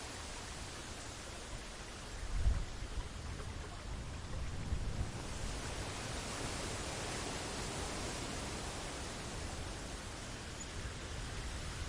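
Wind on the microphone: a steady rushing hiss with low rumbling gusts, the strongest about two and a half seconds in.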